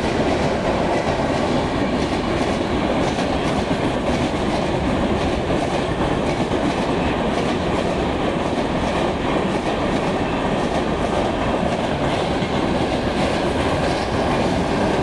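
Howrah–CSMT AC Duronto Express passenger coaches rolling past, a steady, even rumble of wheels on the rails with some clickety-clack.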